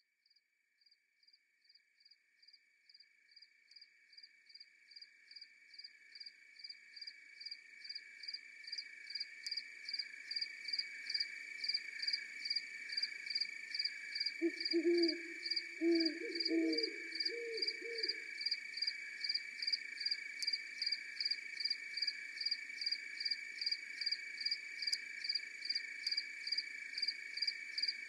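Night insect chorus fading in: a steady high trill under a regular cricket chirp about twice a second. A few low hoots from an owl come near the middle.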